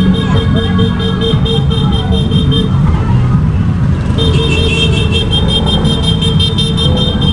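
Vehicle horn beeping in a fast, even series of about five beeps a second, in two runs with a short break about three seconds in, over motorcycle engine and street traffic noise.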